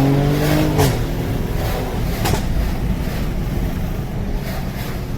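Mercedes-AMG GLE 43's twin-turbo V6 pulling under acceleration, with a gear change just under a second in, after which the engine and road noise settle into a lower, steadier drone.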